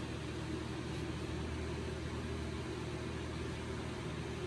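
Steady low hum over an even hiss, with no distinct events.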